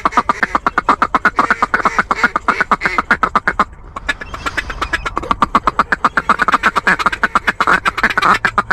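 A fast, even run of duck quacks, about eight a second, with a short pause just before four seconds in.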